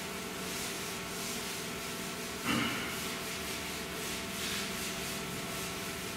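Chalk scratching on a blackboard in a run of short strokes, as in writing, over a steady background hum. One short, louder knock comes about two and a half seconds in.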